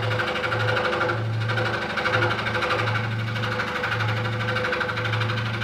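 Electric scroll saw running steadily, its fine blade cutting through a taped packet of wood veneers as the marquetry is turned along the cutting line.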